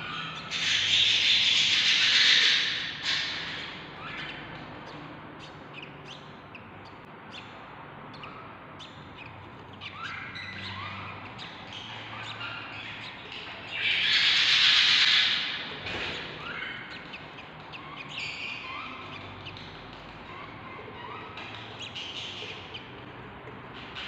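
Newly hatched budgerigar chick begging to be fed by the hen budgie: a string of short rising cheeps, with two louder, longer noisy bursts, one about a second in and one a little past halfway.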